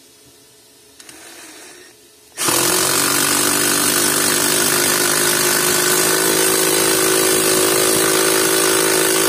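Cordless impact driver with a Phillips PH2 bit driving a screw into tough wood. A short, quieter burst about a second in, then from about two and a half seconds a loud, steady run of about seven seconds under load.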